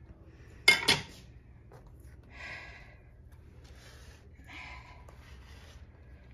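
Two sharp clacks in quick succession, a metal kitchen knife knocking down onto a granite countertop, followed by two softer handling noises as the halves of a cut jackfruit are moved.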